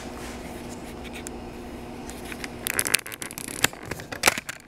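A steady low hum, then from about three seconds in a quick run of short scrapes and clicks from handling things in the kitchen.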